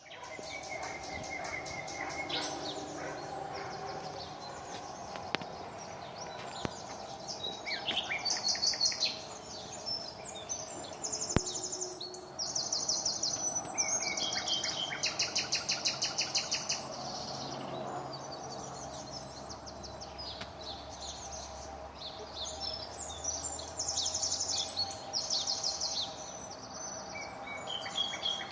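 Nightingale singing: varied phrases of rapid repeated notes, trills and whistles separated by short pauses, over a steady background hum.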